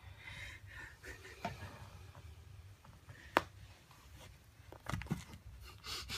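Faint rustling and scraping as a cat bites and claws at a tough fabric banana toy, with a few small knocks and one sharp click about three and a half seconds in.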